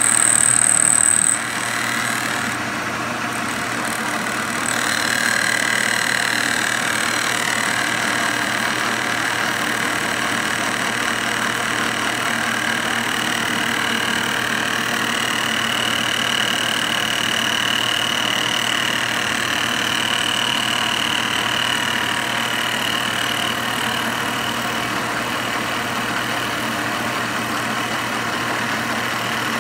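Milling machine running steadily, its cutter facing the warped base flange of a Tillotson Model A Ford carburetor to bring it flat. A high whine stops about a second in.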